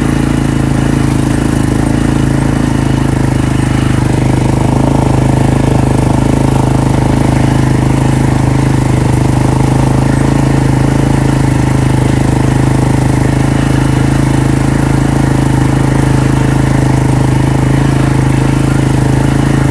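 Four-wheeler (ATV) engine running steadily, a loud low hum that holds one pitch with no revving.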